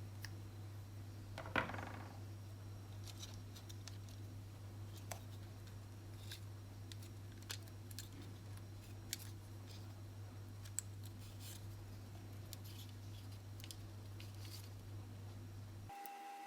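Scattered light clicks and taps from small parts being handled, with one louder knock about one and a half seconds in, over a steady low hum. Near the end the hum cuts out and a steady tone comes in.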